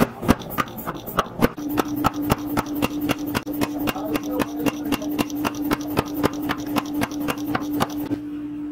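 Power hammer forging a glowing 1095/15N20 Damascus steel billet: rapid even blows of about five a second over a steady hum. The blows stop shortly before the end.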